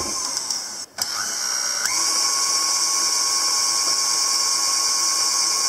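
KitchenAid Artisan stand mixer beating thin cupcake batter with its wire whisk. After a brief drop about a second in, the motor's whine climbs as the mixer is sped up, then holds a steady high whine over a hiss.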